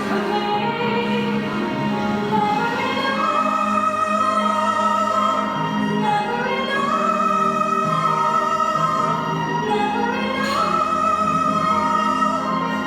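Background music in a classical, operatic style: a slow melody of long-held notes with gliding rises and falls over a steady accompaniment.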